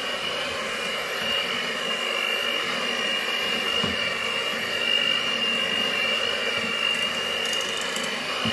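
Electric hand mixer running at its lowest speed, its beaters churning chapati dough in a glass bowl, with a steady high motor whine.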